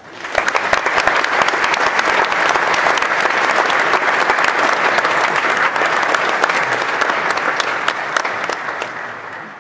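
Audience applauding: dense clapping that starts sharply and dies away near the end.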